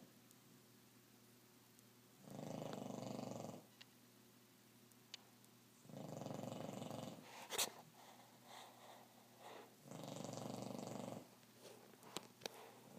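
Dog snoring deeply: three long, even, rattling snores about four seconds apart. A few sharp clicks fall between the snores, the loudest just after the second one.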